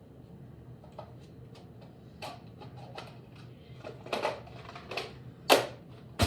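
Scattered clicks and rustling of objects being handled, getting busier in the second half, with a sharp knock about five and a half seconds in and another at the end.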